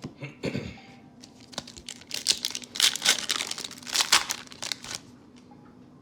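Foil wrapper of a Magic: The Gathering set booster pack being torn open and crinkled. The crackling starts about two seconds in, is loudest around three and four seconds, and dies away about five seconds in.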